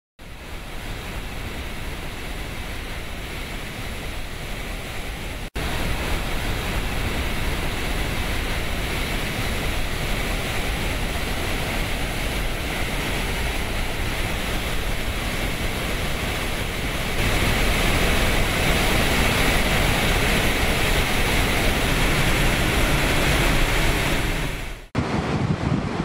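Large volumes of water discharging from dam spillways and outlets: a steady, dense rushing noise. It jumps in level suddenly about five seconds in and again about two-thirds of the way through, with a brief drop near the end.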